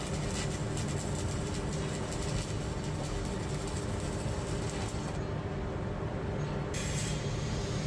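Stick welding with a 7018 rod: a steady arc crackle over a low machine hum. The crackle drops out a little after five seconds in and picks up again near the end.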